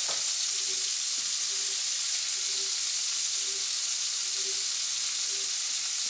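Venison medallions searing in hot oil in a frying pan: a steady, even sizzle.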